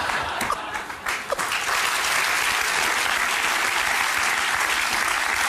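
Studio audience applauding, dipping briefly just before a second in and then swelling back to a full, steady applause.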